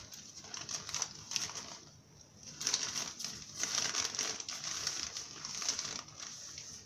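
Fabric of a travel neck pouch rustling and crinkling as it is handled, louder from about two and a half seconds in.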